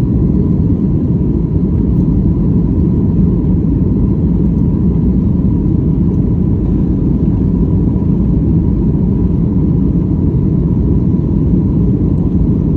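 Boeing 737 MAX's CFM LEAP-1B turbofans running at take-off or climb power: a steady, loud low rumble with a faint steady whine above it.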